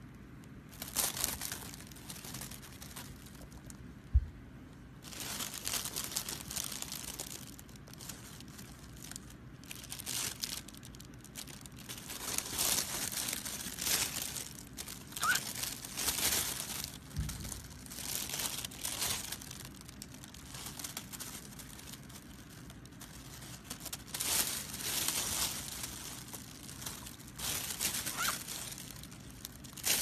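Thin plastic bag crinkling and rustling in repeated bouts as a cockatiel moves about inside it and a hand shifts it. A single sharp knock about four seconds in.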